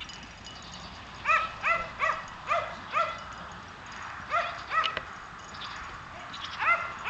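A dog barking repeatedly in short barks, each rising and falling in pitch: a run of five quick barks starting about a second in, two more a little past halfway, and another run beginning near the end.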